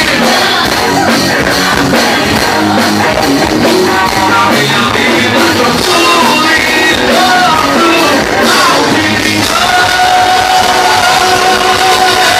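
Live gospel axé band playing loud and full, with a singer's gliding melody over the band; a long note is held through the last few seconds.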